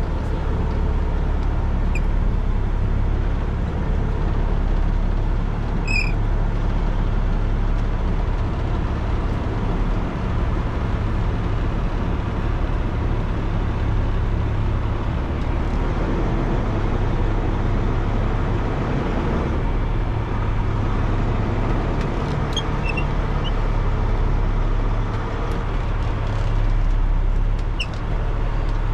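Semi truck's diesel engine running steadily, a low rumble heard from inside the cab, with a few faint clicks.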